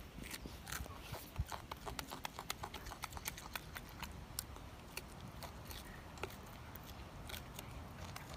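A golden snub-nosed monkey chewing and smacking its lips on pieces of orange: a faint, irregular run of small clicks and smacks.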